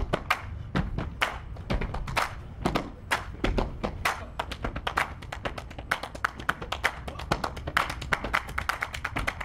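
Fast, dense rhythmic percussion: sharp taps and claps over low thumps, played as a continuous groove.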